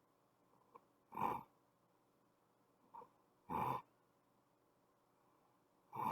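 A sleeping person snoring: three short snores evenly spaced about two and a half seconds apart, with a faint click just before the first two.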